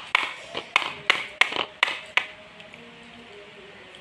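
A quick run of sharp taps or clicks, about eight in two seconds, then faint soft sustained tones.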